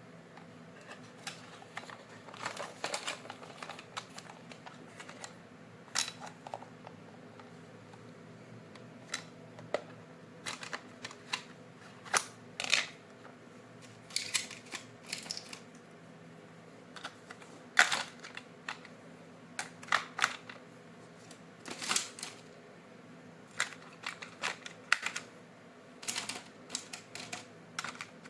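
Irregular clicks, taps and short plastic rustles of toys and packaging being handled, over a faint steady hum.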